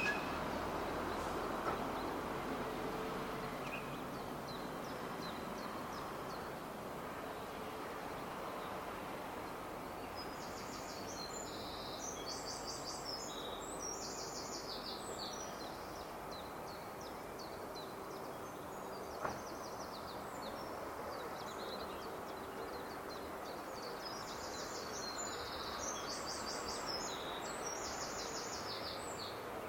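Steady outdoor background noise with a small bird singing over it, two bouts of quick repeated high notes, one about a third of the way in and another near the end.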